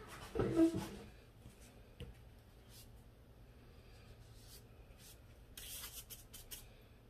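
A dull knock of handling about half a second in, a few faint clicks, then about five and a half seconds in a second of soft scratchy swishing as a wide flat paintbrush is worked through watery blue paint on a foam plate.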